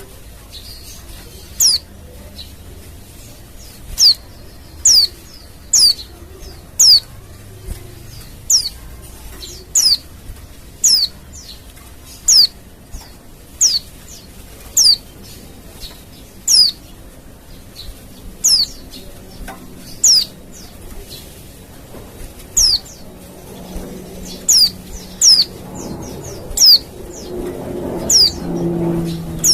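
Female white-eye (pleci) giving short, high calls that fall in pitch, repeated roughly once a second at irregular intervals: a lure call used to draw wild white-eyes. A low hum grows beneath them near the end.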